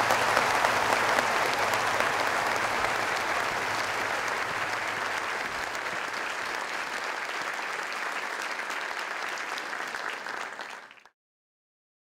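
Large audience applauding, easing off slowly, then cut off abruptly about eleven seconds in.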